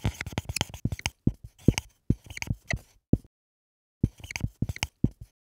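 Rapid runs of short, sharp clicks and taps, pausing for most of a second about three seconds in, then one more run that stops shortly before the end.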